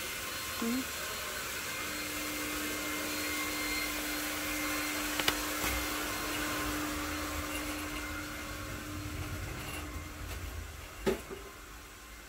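Steady whirring hiss and faint hum of machinery in a grocery store, dropping away near the end, with a sharp click about eleven seconds in.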